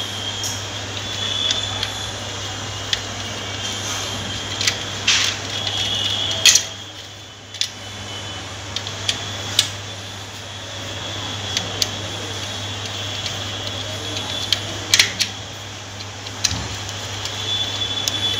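Small irregular clicks, taps and scrapes of a screwdriver on a switch's terminal screw and plastic housing as a wire is tightened in, over a steady low hum.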